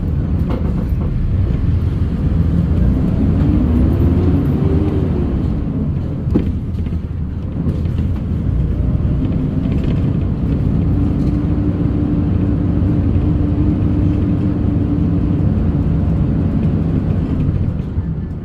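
Bus engine cooling fan whirring over the engine's low rumble. Its whine rises and falls a few seconds in, then holds a steady pitch through the middle. There is a single knock at about six seconds.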